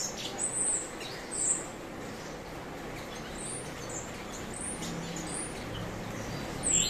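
Cucak cungkok songbird calling in short, high chirps, about eight spread unevenly over a few seconds, over a faint steady background hiss.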